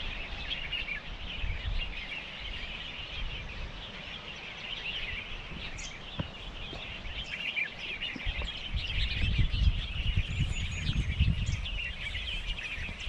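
Many small birds chirping and singing together in a steady chorus, with a low rumble underneath.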